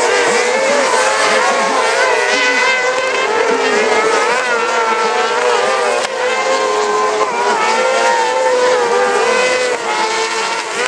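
Several off-road racing karts running flat out on a dirt track, their high-revving engines overlapping and rising and falling in pitch as they accelerate and lift for the corners.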